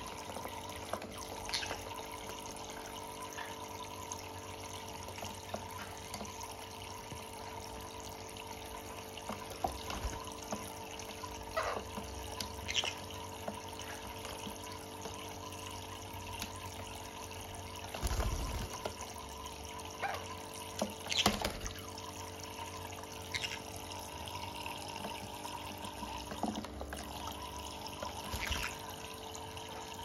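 Water running in a thin steady stream from a pet bird bath's small faucet into its basin, with a faint steady hum under it. A few brief splashes break in here and there, the strongest about two-thirds of the way through, as conures step and dip in the water.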